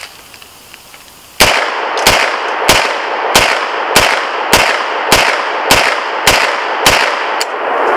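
Bear Creek Arsenal bufferless 9mm AR pistol with a spiral muzzle brake firing ten semi-automatic shots at a steady pace, about two-thirds of a second apart, starting about a second and a half in. Each shot rings on in the woods until the next.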